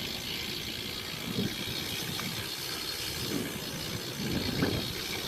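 Wethepeople BMX bike's rear hub freewheel ticking as the bike coasts, over a steady rush of riding noise.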